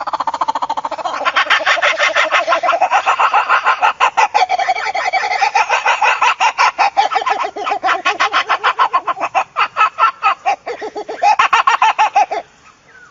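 A long, fast run of cackling, clucking bird-like calls, many pulses a second, going almost without a break and stopping just before the end.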